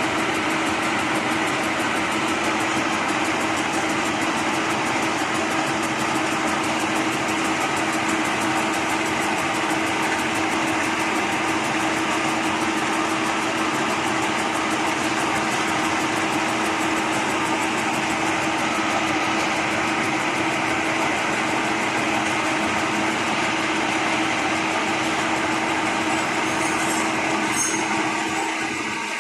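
Metal lathe running steadily: a constant machine drone with a steady hum tone, which eases slightly near the end as a few light ticks come in.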